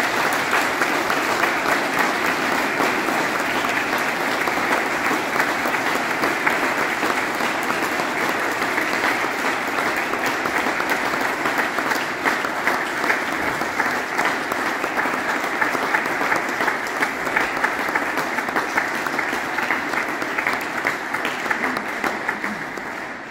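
Congregation applauding: a long, steady round of clapping that dies away near the end.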